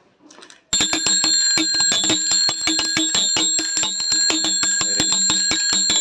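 Homemade theft alarm going off: a nut and bolt, swung on a rubber band by a small DC motor, beats rapidly against a bicycle bell dome. It makes a loud, continuous rattling ring that starts suddenly about a second in, once the clothes-peg switch completes the circuit.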